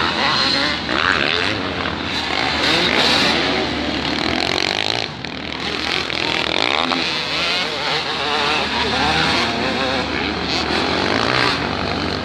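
Motocross bikes racing on a dirt track, their engines revving up and down in many overlapping rising and falling pitches.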